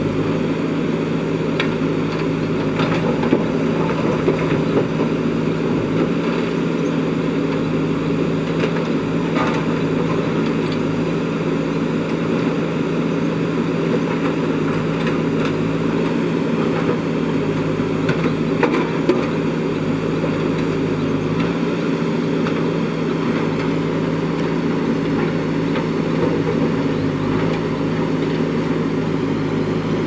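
JCB 3DX backhoe loader's diesel engine running steadily, with a few sharp knocks scattered through.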